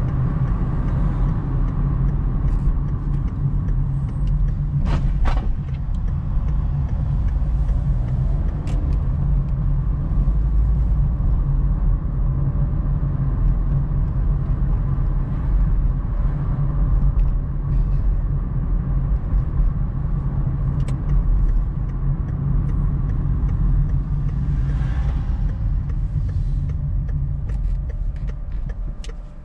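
Car's engine and tyre rumble heard from inside the cabin while driving, with a few brief sharp clicks about five seconds in. The rumble eases near the end as the car slows to a stop.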